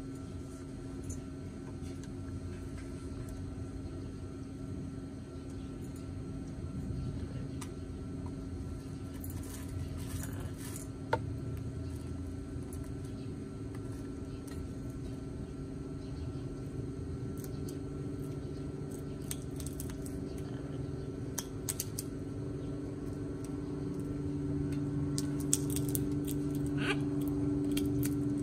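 Parrots feeding, with scattered light metallic clinks and clicks of a beak and fruit against stainless steel food bowls, over a steady low engine-like hum that grows louder near the end.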